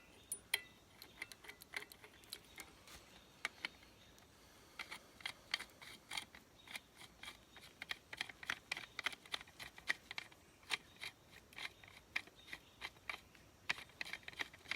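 Sections of an entrenching tool's screw-together handle being threaded and tightened by hand: a run of quick, irregular clicks, sparse at first and coming thicker from about five seconds in.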